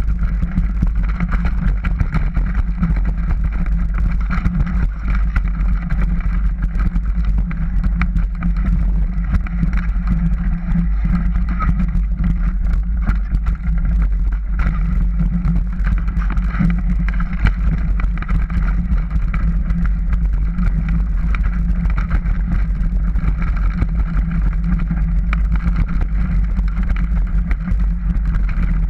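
Mountain bike riding down a dirt singletrack: a steady rumble of wind and tyre noise on the rider-mounted camera's microphone, with a constant patter of small rattles and clicks from the bike over rough ground.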